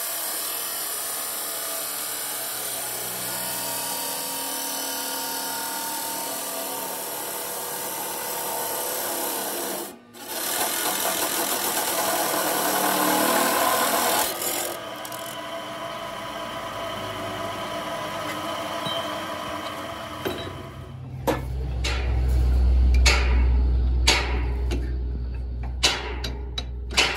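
Abrasive cut-off saw's disc grinding through a thick steel tube: a steady harsh grinding with a short break about ten seconds in. In the last few seconds a low hum and a run of sharp metallic knocks take over.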